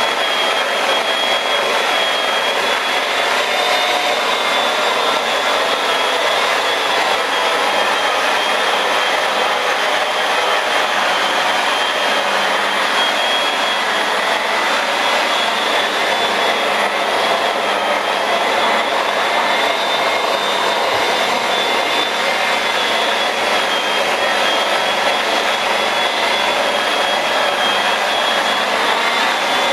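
Rotary car polisher with a foam pad running steadily on the paint, cutting and polishing a repaired scratch with compound. A constant motor whine with a high tone that wavers slightly.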